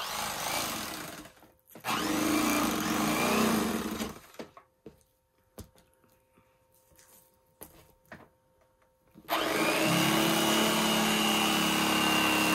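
Corded electric fillet knife running as it slices walleye fillets. It runs in two short spells of about two seconds each, stops for several seconds with only a few light clicks, then runs steadily from about nine seconds in.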